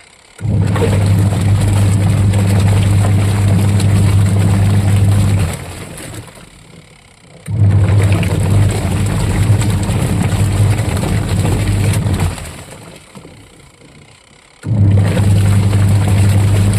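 Washing machine motor running its wash cycle in bursts: a steady low hum for about five seconds, a pause of about two seconds, then again, three runs in all.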